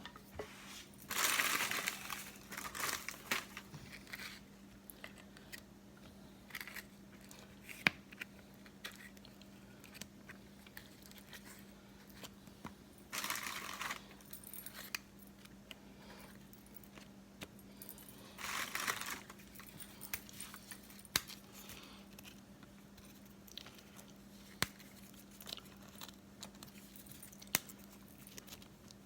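Crinkling of a graham-cracker wrapper in three short bursts, with scattered small clicks and taps as crackers are broken and set down in the dish. A faint steady hum runs underneath.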